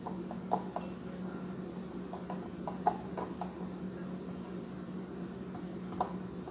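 Spatula stirring thick almond-flour dough in a glass mixing bowl, with scattered light clicks and scrapes as it knocks against the glass. A steady low hum runs underneath.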